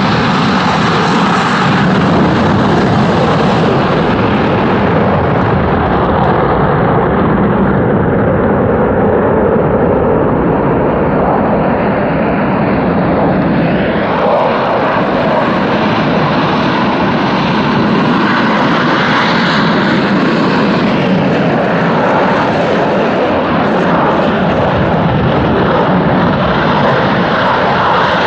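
F-16 fighter jets taking off: loud, continuous jet engine noise whose higher range thins out about a third of the way in and comes back later.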